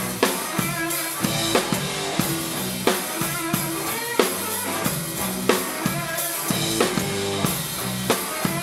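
Rock drum kit played with a full band in an instrumental passage between sung lines: kick drum, snare and cymbal strokes in a steady rhythm over sustained pitched instruments.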